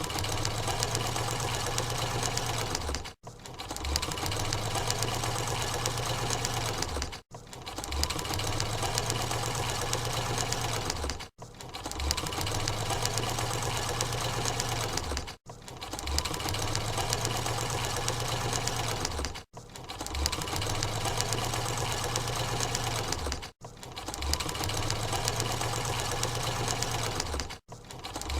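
Sewing machine stitching at speed, a dense rapid clatter with a low hum under it. The same run of about four seconds repeats seven times, each cut off by a brief break.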